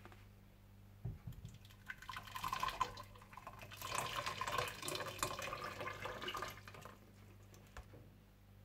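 Strained tomato puree being poured into a cooking pot: a light knock about a second in, then several seconds of thick liquid splashing and dripping.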